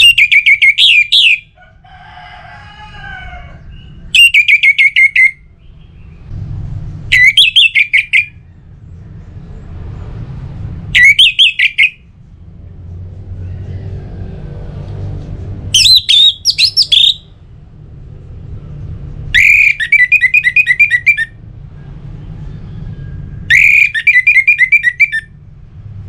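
Orange-headed thrush singing loud, short phrases of quick whistled notes, seven phrases a few seconds apart: the clear, full song that hobbyists call ngeplong.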